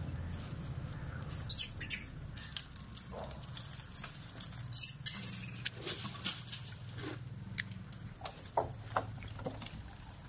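Scattered sharp clicks, taps and scrapes of macaques clambering on and gripping a metal window grille as they are handed grapes, the loudest a few seconds in and about halfway, over a low steady hum.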